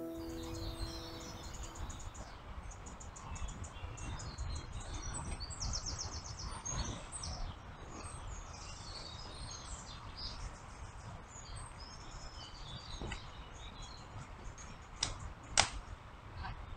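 Songbirds chirping and singing over a steady low rumble. A few sharp knocks come near the end.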